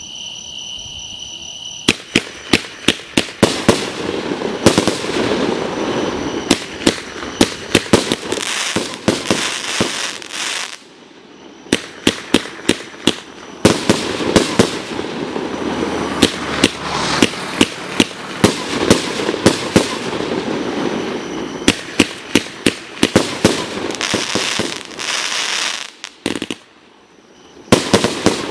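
A multi-shot fireworks cake firing a rapid run of aerial shells, a sharp bang a few times a second over a continuous crackle of bursting stars. The shots start about two seconds in and pause briefly twice.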